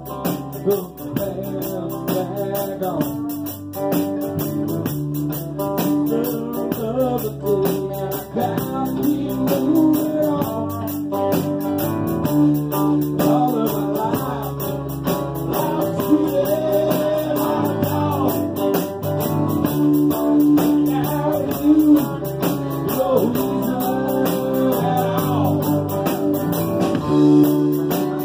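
Live band playing a song: strummed acoustic guitars over an electric bass guitar.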